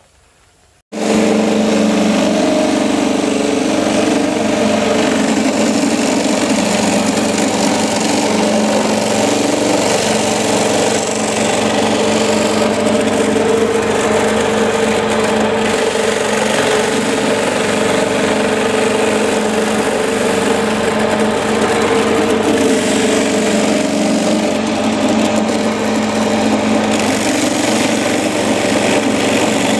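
Motor-driven grating machine running steadily, its spinning ribbed metal drum shredding arrowroot rhizomes into pulp as they are pressed against it by hand.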